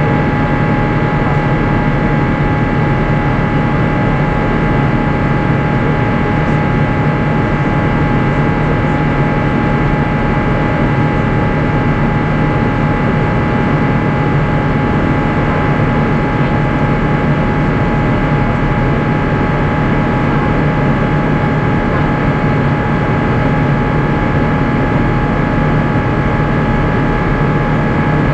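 Airbus A350-900 cabin noise in flight: the even rush of airflow and engine hum from its Rolls-Royce Trent XWB engines, with a few steady whining tones over it.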